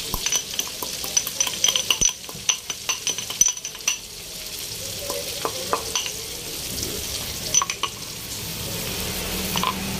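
Stone pestle clinking and grinding against a marble mortar, crushing whole black peppercorns, with rapid sharp clinks over the first four seconds and a few more later. Onions and garlic sizzle in oil in the wok underneath.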